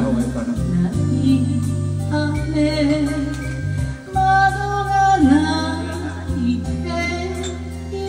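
A woman singing karaoke into a handheld microphone over a backing track with steady bass notes, her voice amplified through the room's sound system.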